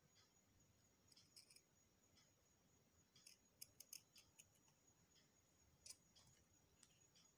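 Scissors snipping faintly through cotton fabric backed with fusible interfacing, in short separate cuts, with a quick run of snips about halfway through and one more near the end.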